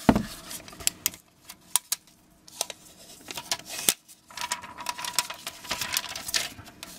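Scattered light clicks and taps of a box and phone being handled. In the second half, crinkling and rustling as a clear plastic protective film is peeled off the back of a new smartphone.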